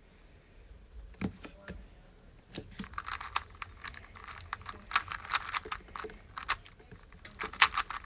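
A Dayan TengYun 2x2 speedcube being turned very fast by hand during a timed solve. It makes a quick run of light plastic clicks and clacks that starts about two and a half seconds in and goes on to the end.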